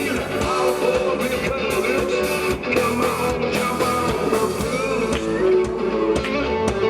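Live band music: guitar played over a steady drum beat.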